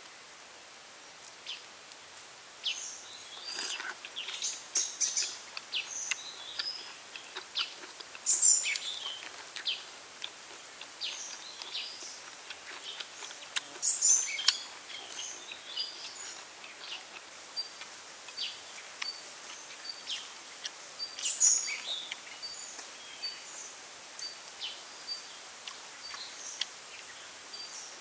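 Birds chirping and calling in woodland, with scattered short clicks. In the second half one bird repeats a short high pip about every second and a half.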